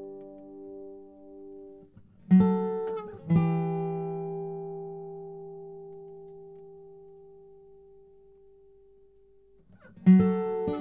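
Background music on acoustic guitar: a held note dies away, two plucked chords a couple of seconds in ring out and fade slowly, then new plucked notes come in near the end.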